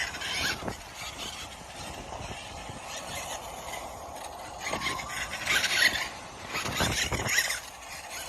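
Electric motor of a Losi LMT radio-controlled monster truck whining in short throttle bursts, near the start, about five seconds in and about seven seconds in, over a steady background hiss.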